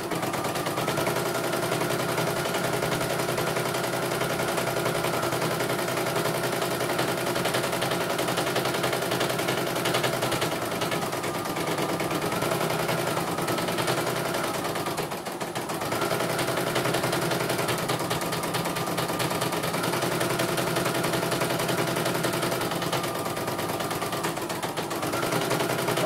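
CNY computerized embroidery machine stitching: a rapid, even run of needle strokes over the motor's steady hum, its pitch sagging briefly a few times as the hoop is moved. The machine is running a design normally, with no fault to be heard.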